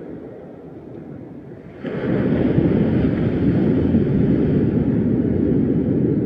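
Steady rushing noise of wind and ocean surf on the microphone, jumping suddenly louder and brighter about two seconds in.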